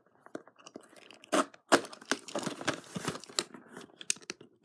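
A toy model box being opened by hand: packaging tearing and rustling in irregular crackles, with a couple of sharper, louder rips about a second and a half in.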